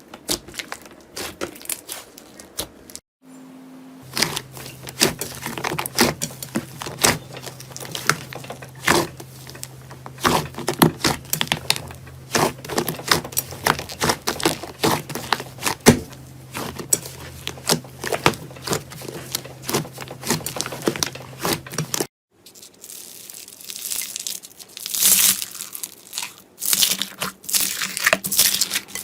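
Slime being squeezed, pressed and stretched by hand, giving dense irregular crackling and popping clicks. The sound changes abruptly about three seconds in and again about 22 seconds in, as one slime clip gives way to the next, with a faint steady hum under the middle part.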